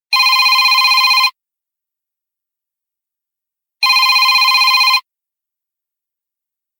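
Smartphone ringtone in a classic telephone-ring style: a rapidly trilling electronic ring sounds twice, each ring about a second long, with a pause of about two and a half seconds between them.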